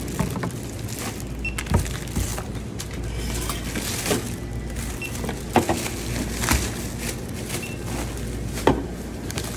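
Checkout barcode scanner giving short high beeps, three times a few seconds apart, as items are rung up, with knocks of cans and packets being set down on the counter over a steady low hum.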